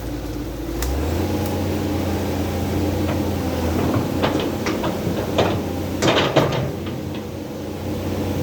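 Dump truck's diesel engine running, its steady drone stepping up in pitch about a second in as it picks up speed and then holding even, with a run of sharp clicks and knocks from cab and body rattles in the middle.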